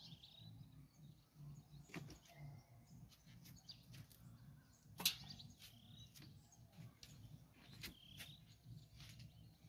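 Faint outdoor ambience with a few short bird chirps and occasional sharp clicks, the loudest click about five seconds in.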